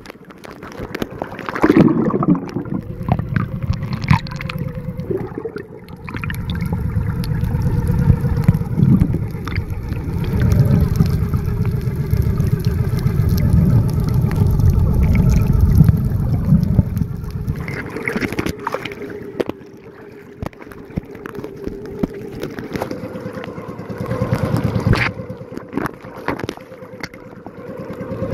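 Steady boat engine hum with water sloshing and gurgling close to the microphone, the low rumble swelling in the middle and easing near the end.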